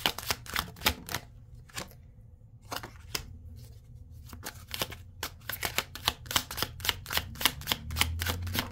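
A tarot deck being shuffled by hand: quick runs of light card-on-card clicks and slaps. They stop for about a second and a half soon after the start, come back more sparsely, then run on steadily through the second half.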